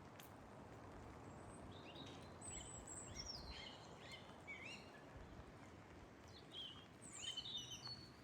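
Small birds chirping faintly in woodland, a scatter of short rising and falling notes that start about two seconds in and bunch up again near the end, over a steady low background hiss.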